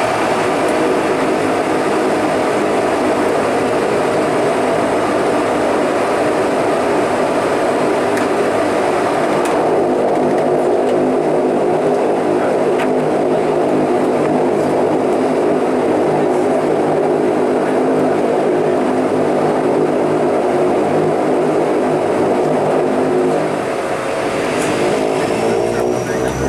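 Bombardier Dash 8-300's twin Pratt & Whitney Canada PW123 turboprops and propellers running at takeoff power during the takeoff roll, heard from inside the cabin beside the propeller as a loud, steady drone with a whine. Near the end the propeller tones begin to waver and glide in pitch.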